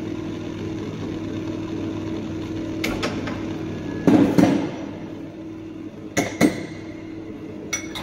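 Sharp metal knocks and clinks of espresso-making gear at the machine, the loudest about four seconds in, over a steady low hum.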